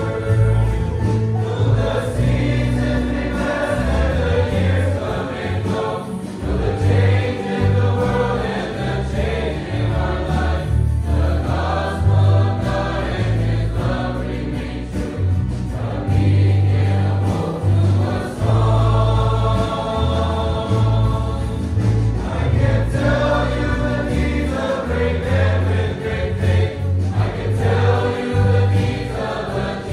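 Large mixed choir of young men and women singing a hymn in phrases, over instrumental accompaniment with a strong low bass line that moves note by note.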